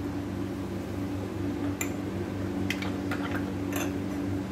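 A hand mixing flour and milk into dough in a glass bowl: soft squishing and rubbing, with a few light ticks and scrapes against the bowl about two to four seconds in. A steady low hum runs underneath.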